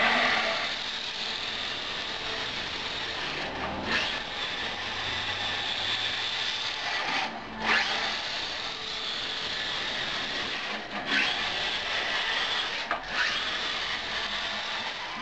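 A 1/10-scale RC 6x6 truck driving across carpet: its Novak Goat brushless crawler motor and gear drivetrain give a steady whir. The whir drops out briefly a few times, and there are several sharp knocks.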